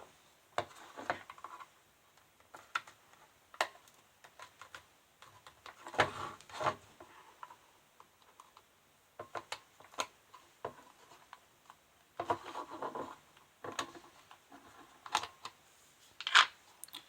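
Plastic casing of an Opel Astra G comfort control module being handled and pried open: scattered sharp clicks and snaps with short bouts of scraping and rubbing.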